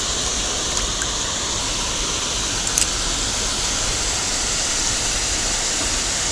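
Steady rush of water pouring from an outflow into a small river, with one short click about three seconds in.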